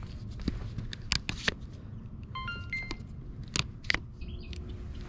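Clicks and knocks of a black extension pole and its clamp mount being handled and swung out, with a quick run of short electronic beeps at changing pitches about halfway through.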